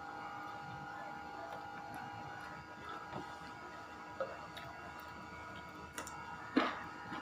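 Close eating sounds: a few short crunching bites and chewing of raw vegetables, the loudest bite near the end, over a steady hum.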